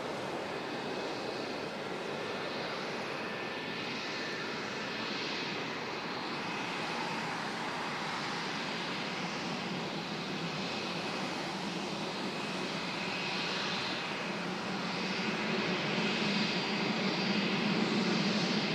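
Airbus A320-200 jet engines running as the airliner rolls along the ground: a steady engine noise with a thin whine, growing louder in the last few seconds.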